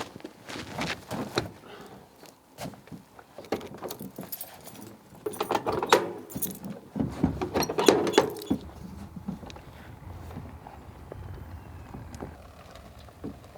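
Jingling and clinking of small metal objects, with scattered knocks, busiest in the middle; a faint low rumble follows for the last few seconds.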